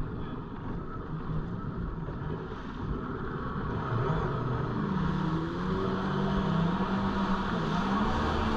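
Jet ski engine running under throttle, its pitch and loudness climbing about four to five seconds in as it speeds up, over a rush of wind and water.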